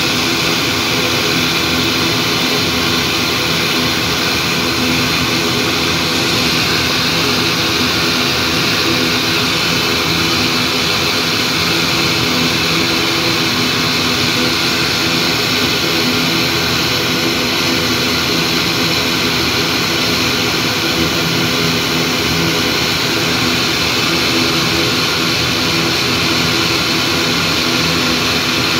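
ATR 42-500 turboprop airliner, its Pratt & Whitney PW127 engines running on the ground: a steady propeller drone under a constant high turbine whine, with no change in power.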